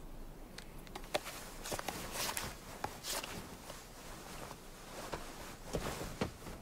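Footsteps on snow: an uneven run of steps beginning about half a second in.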